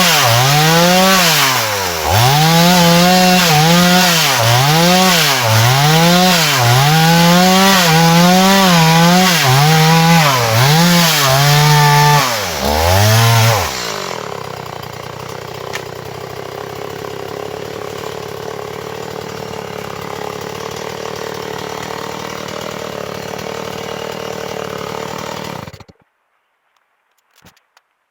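Small two-stroke chainsaw cutting dry timber, its engine pitch sagging and recovering over and over as the chain bites into the wood. About 14 s in it drops to a steady idle, and it shuts off abruptly near the end.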